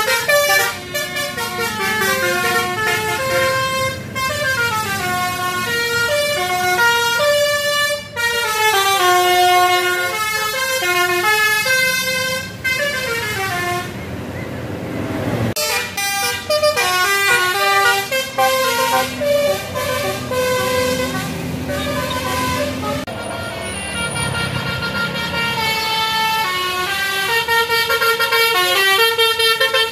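Telolet bus horns: multi-tone musical horns on buses playing quick tunes of stepping notes, one tune after another. A burst of hiss breaks in for about a second and a half near the middle.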